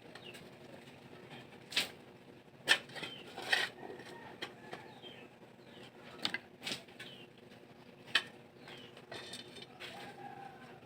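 A few sharp knocks and taps, about six scattered through the stretch, with faint bird chirps between them.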